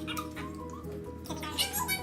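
Background music with sustained notes, and a short high-pitched call near the end.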